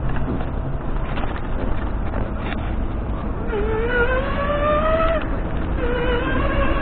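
Electric bike motor whining under power, the whine rising in pitch as the bike speeds up from about halfway in, dropping briefly about five seconds in and rising again near the end, over a steady low rumble.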